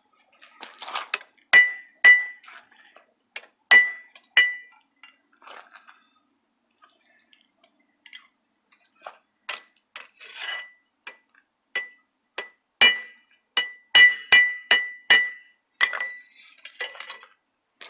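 Hammer blows on a forged steel wall hook lying on an anvil, each strike ringing, while the hook's taper is flattened. A few hard blows in the first seconds, lighter taps in the middle, then a quick run of about eight blows near the end.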